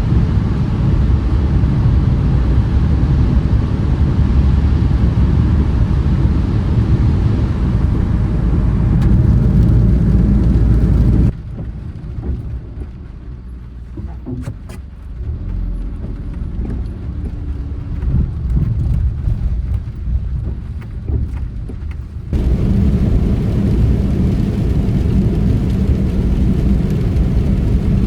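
Car road noise heard while driving: a steady low rumble. About eleven seconds in it cuts abruptly to a quieter stretch with scattered light ticks and taps, and about eleven seconds later the rumble cuts back in.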